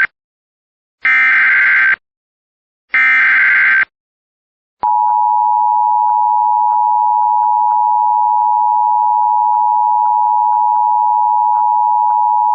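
Emergency Alert System SAME header: two bursts of harsh digital data tone, about a second each, then the EAS two-tone attention signal held steadily for about eight seconds. Together they announce an emergency alert, here a flash flood warning.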